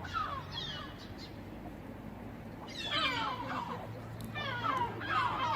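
Seagull calling repeatedly in short, falling-pitched squawks. The calls come in clusters and are loudest from about three seconds in.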